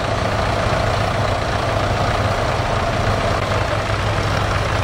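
Fordson Super Major tractor's four-cylinder diesel engine running at a steady low speed as it drives slowly past.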